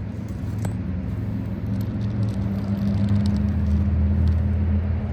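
A motor vehicle engine running steadily, growing louder in the second half, with a few light clicks over it.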